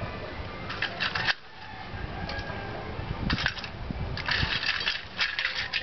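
Lumps of charcoal clinking and clattering against metal tongs, a steel bowl and the clay-lined stove as they are picked up and dropped in, in several short bursts.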